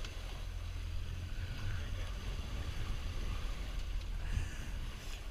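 Boat under way: Honda outboard motors give a steady low rumble, mixed with wind noise on the microphone.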